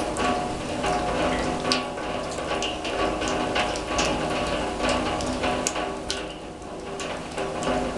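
Rain falling on a steel drum: steady patter with irregular sharp taps of drops hitting the metal, which rings with a few fixed tones.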